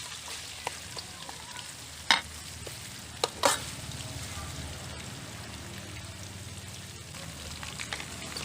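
Pork ribs and ginger sizzling steadily as they are stir-fried in a pan, with a few sharp knocks of the utensil against the pan, loudest about two seconds and three and a half seconds in.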